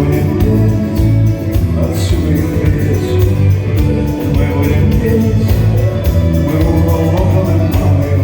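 Live rock band playing a song with a singing voice over the instruments, recorded in the concert hall.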